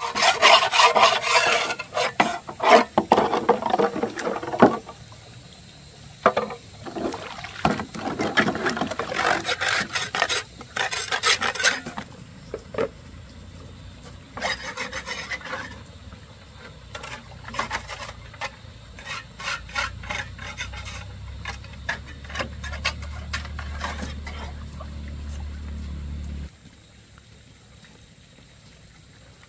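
Rough scraping and rubbing strokes of a tool working cement, dense for the first twelve seconds and sparser after that. A low steady hum comes in later and cuts off suddenly near the end.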